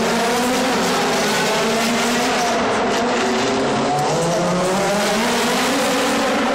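DTM touring cars' 4.0-litre V8 engines racing, loud, the pitch rising and falling again and again as they accelerate, shift and brake around the circuit.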